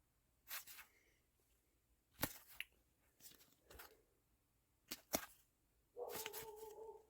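Foil booster pack wrappers being handled and torn open in scattered short crinkles and snaps. Near the end a dog whines for about a second.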